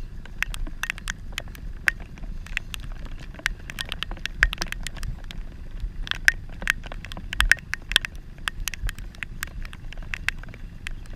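Heavy rain: raindrops striking the wet camera in a dense, irregular patter of sharp ticks over a steady low rumble.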